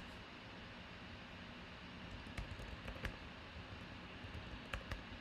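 Scattered clicks of computer keyboard keys and a mouse, a few single taps and a close pair near the end, over a faint steady hiss.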